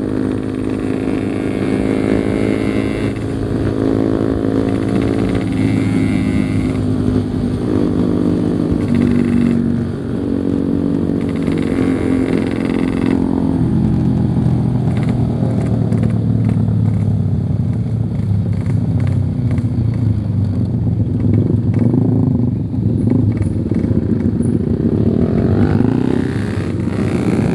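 Yamaha RX-King's single-cylinder two-stroke engine running under way, its note changing pitch in steps several times during the first half as the throttle and gears change.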